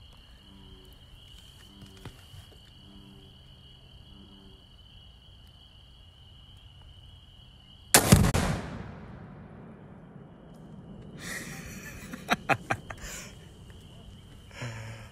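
A rifle shot setting off a tannerite target: one sudden loud blast about halfway through, its rumble dying away over a couple of seconds. A few sharp pops follow near the end.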